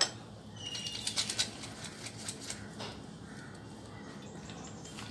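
Faint, scattered light taps and clicks, thickest in the first second and a half: a plastic strainer being handled over a steel plate while lemon juice is strained onto boiled chana dal.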